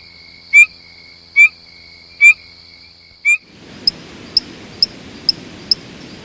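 Tree frogs calling: short, sharp call notes repeating about once every 0.8 seconds over a steady high whine. About three and a half seconds in, the sound switches to a hissier recording with quicker, higher chirps about twice a second.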